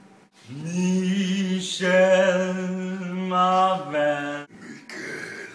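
A man singing long held notes. The first slides up into pitch, a second is held at about the same pitch, and a shorter, lower note ends the phrase.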